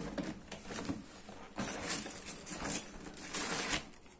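Rustling and crinkling of a square Rappi delivery backpack's nylon shell and foil insulated lining as it is handled, in a series of irregular scuffs.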